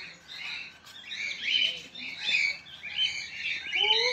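A chorus of many small birds chirping and chattering, in overlapping bursts about once a second.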